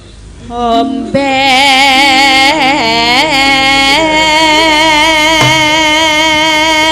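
A single voice singing a Javanese vocal line: it enters softly, wavers in pitch for a few seconds, then holds one long, steady note.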